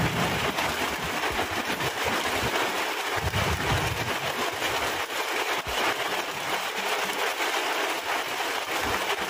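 Heavy rain falling in a steady downpour, with a low rumble about three seconds in.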